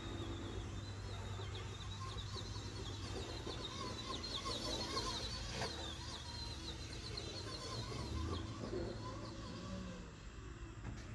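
Birds calling, with quick chirping trills that fade out about two-thirds of the way through, over a steady low hum.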